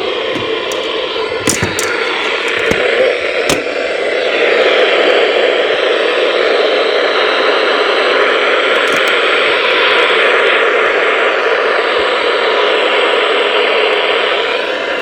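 Radio static: a steady hiss from weak, far-off reception of a weather radio broadcast, with a few sharp crackles in the first few seconds.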